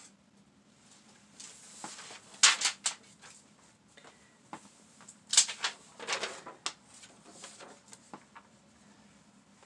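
Sheets of copy paper rustling as they are lifted off and handled, in a few short bursts that are loudest about two and a half and five and a half seconds in.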